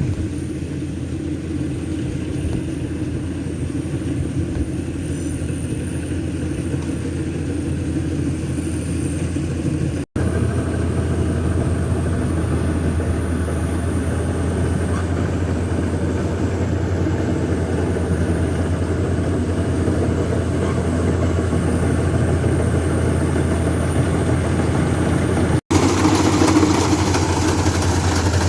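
Heavy machine's diesel engine running steadily with a deep hum. The sound breaks off for an instant twice, about ten seconds in and near the end, and is a little louder after each break.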